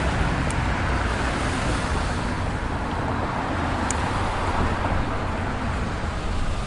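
Steady background rumble of road traffic, with no distinct events apart from two faint ticks.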